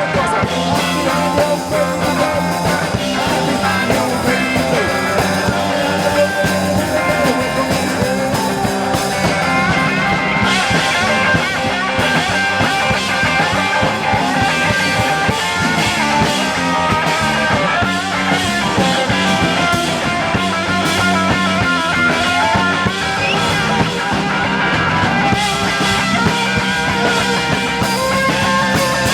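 Rock band playing live: a long instrumental passage with no vocals.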